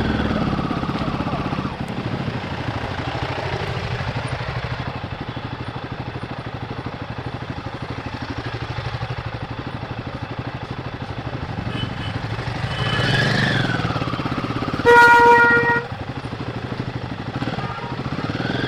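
Royal Enfield Guerrilla 450's single-cylinder engine on a stock exhaust, running under way with steady firing pulses. It revs up and falls back about two-thirds of the way through and rises again near the end. Around fifteen seconds in, a vehicle horn gives one loud, steady blast of about a second.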